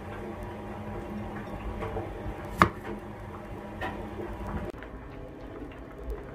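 Kitchen knife halving cherry tomatoes on a cutting board: soft cutting sounds and light taps, with one sharp knock of the blade on the board a little under three seconds in.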